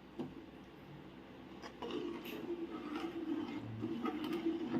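Pan of sardine curry with coconut milk being added: small clicks and faint liquid sounds, then a steady low bubbling from about two seconds in.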